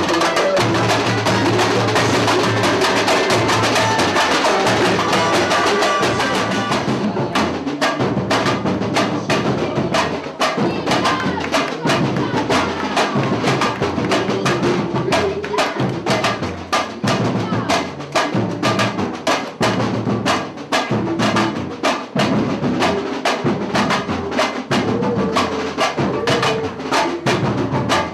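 Samba music driven by fast, dense live percussion with a steady beat. About seven seconds in, a bright shimmering wash drops away, leaving sharper, more separate drum strokes.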